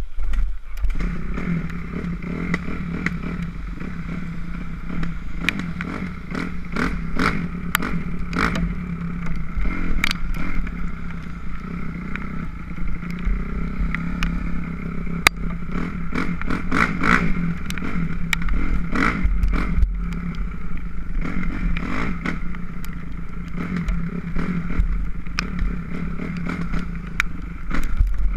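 2006 Kawasaki KX250F four-stroke single-cylinder dirt bike engine running at a fairly steady speed, with frequent sharp clicks and clatter over it.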